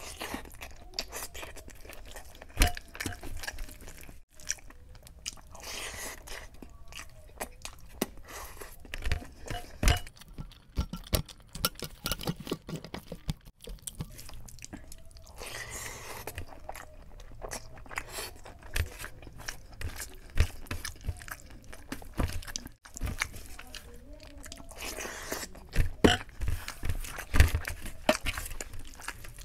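Close-miked chewing and wet mouth sounds of someone eating chicken biryani by hand, with many short clicks. Fingers mixing and scooping rice on a metal tray at times.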